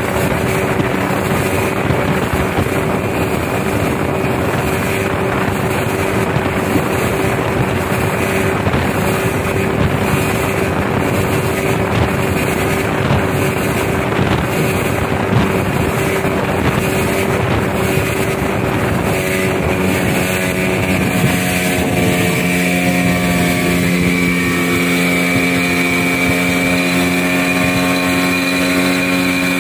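Outboard motor driving a long river boat at speed, with water rushing along the hull and wind on the microphone. About twenty seconds in, the engine note shifts and becomes a clearer, steadier hum.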